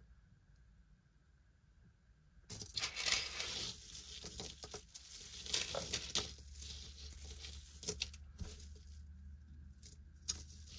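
Hands picking through a pile of costume jewelry: rustling with many small metallic clicks and clinks, starting a couple of seconds in after near silence.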